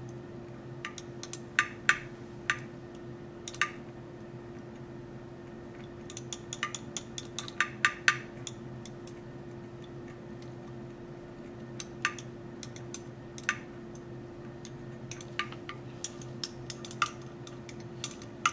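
Glass stirring rod clinking irregularly against the inside of a glass graduated cylinder in bursts of taps, while stirring aloe vera gel into ethanol solution to dissolve it.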